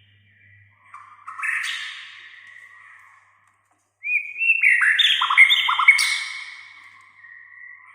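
White-rumped shama (murai batu) in vigorous song: two loud phrases of sharp, quickly falling notes that trail into a held high whistle, the first about a second in and the second, louder, about four seconds in, with a short pause between.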